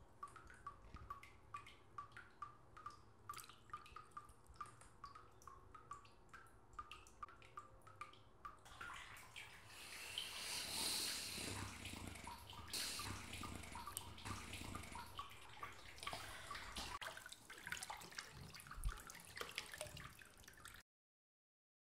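Water dripping into water, steady plinks about two or three times a second. From about nine seconds in, a louder rush of running, splashing water takes over, then cuts off suddenly near the end.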